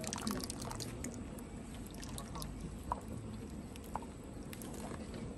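Oil poured in a thin stream from a bottle into a large metal pot of broth, splashing into the liquid.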